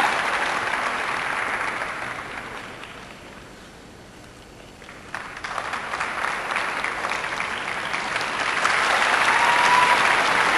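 Arena crowd applauding. The applause fades to a low level about four seconds in, then comes back abruptly about a second later and builds until it cuts off sharply at the end.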